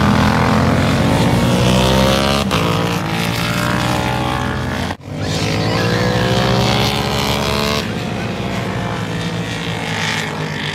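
Racing motorcycles' engines running hard at high revs as the superbikes go by on the track, the pitch sliding as they pass. The sound breaks off sharply about two and a half and five seconds in.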